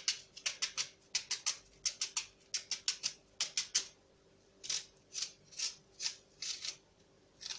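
Knife chopping an onion: a quick run of cuts, about five a second, for the first few seconds, then slower, evenly spaced cuts about two a second.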